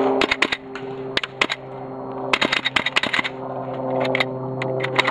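Airsoft gunfire in short irregular bursts of sharp clicks and cracks, the densest run about halfway through, over a steady low hum.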